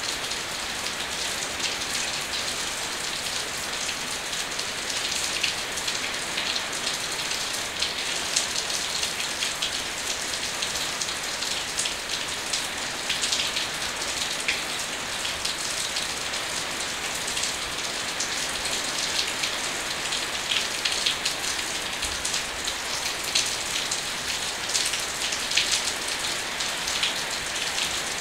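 Steady rain falling: a constant hiss with many small, sharp drop ticks scattered through it, even in level throughout.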